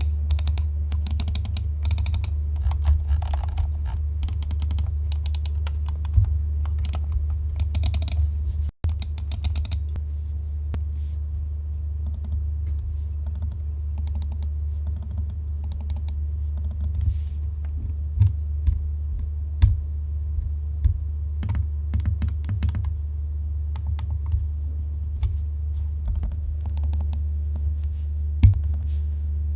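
Logitech MX Master 3S mouse buttons being clicked repeatedly as a test of how quiet its clicks are. The clicks come in quick clusters for the first several seconds and more sparsely after that, over a steady low hum.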